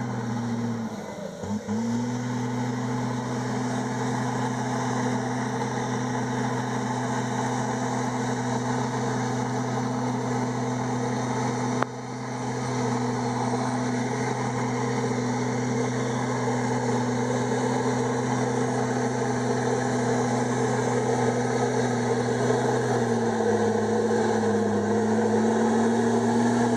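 Komatsu D51EX bulldozer's diesel engine running steadily at work. Its pitch dips briefly about a second in, then sags and recovers near the end. A single sharp click comes near the middle.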